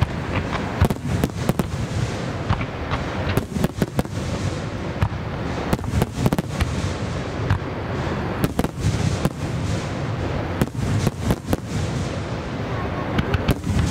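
Aerial firework shells bursting in a rapid barrage: many sharp bangs in quick succession over a continuous rumble and crackle.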